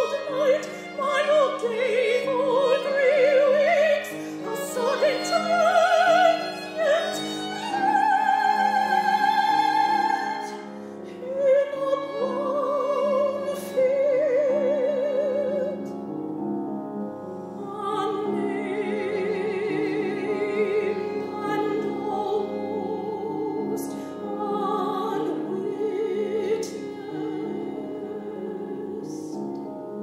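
Operatic soprano singing a contemporary art song with vibrato over piano accompaniment, holding long notes.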